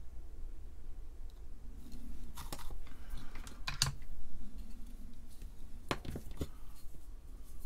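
Tools and a circuit board being handled on a workbench: a few sharp clicks and taps, the loudest about four seconds in, with two more near six seconds in, over a low steady hum.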